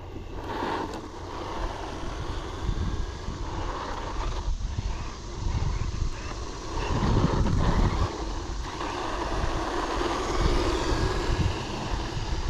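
RC monster truck with a 540-size brushed electric motor running across asphalt: a motor whine with tyre noise, under wind buffeting the microphone that is heaviest around seven to eight seconds in.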